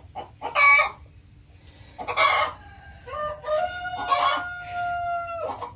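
Chickens calling, a couple of short calls followed by a rooster's long, drawn-out crow of about two seconds near the end.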